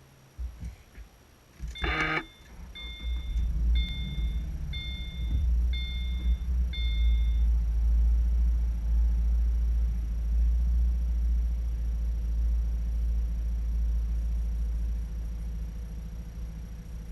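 2015 Subaru Forester XT's turbocharged 2.0-litre flat-four engine cranked and started cold, then running at idle with the cold-start misfire it has. The rumble is loudest for several seconds after it catches and eases off near the end. Just after it starts, a dashboard warning chime beeps five times, about once a second.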